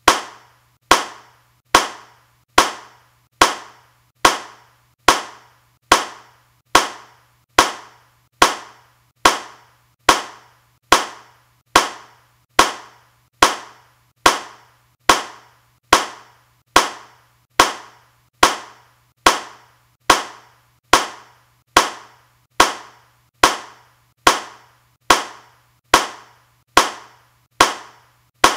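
A single hand clap repeated at a steady, even pace, a little more than one a second, each clap sharp with a short decay.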